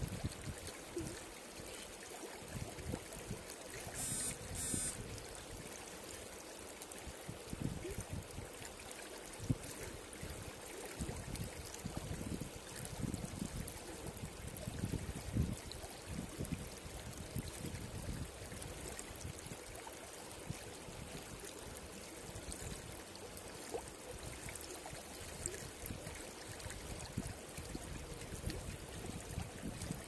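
Shallow mountain river flowing over and around boulders, a steady rush of water with uneven low surges. A brief high-pitched chirp comes about four seconds in.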